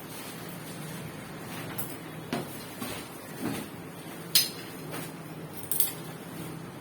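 Scattered light knocks and clinks of hard objects being handled, about six in all, the sharpest a little past four seconds in, over a steady low hum.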